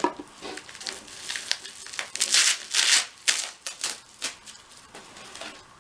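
Clear plastic packaging crinkling and rustling in quick crackles and scrapes as a small essential-oil bottle is pulled out of its plastic wrap, loudest about two to three seconds in and dying down near the end.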